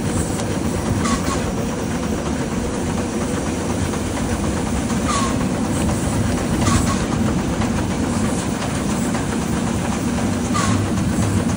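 Steam train running along the track: a steady rumble of wheels on rail, with a sharp click four times, spaced a few seconds apart.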